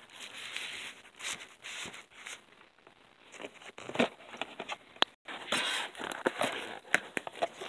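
Plastic wrappers of individually wrapped sanitary pads and panty liners crinkling and rustling as they are handled, with several sharp clicks and taps.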